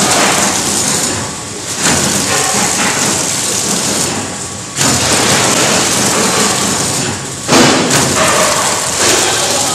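Horizontal flow-wrap packing machine wrapping leafy vegetables in film, running with a dense, hissing mechanical din that surges suddenly louder about every three seconds.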